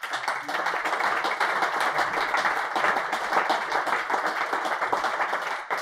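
Audience applauding, many hands clapping in a dense patter that starts suddenly and dies away near the end.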